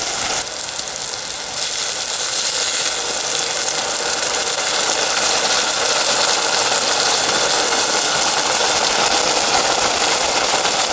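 Chopped green peppers and elephant garlic in olive oil sizzling steadily in a stainless steel pot, just after soy sauce has been added: the liquid frying off in the hot oil as the mixture starts to caramelize. The hiss picks up a little about half a second in.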